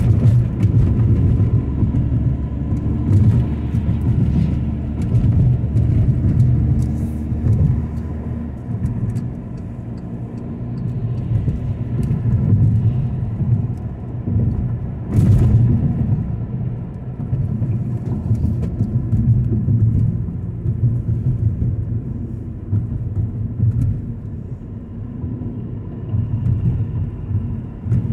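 Car driving: steady low rumble of engine and road noise, with a few brief clicks.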